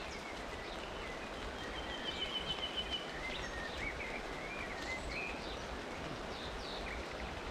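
Steady noise of rain falling on the river, with a bird singing over it in short warbling phrases, including a rapid trill about two seconds in.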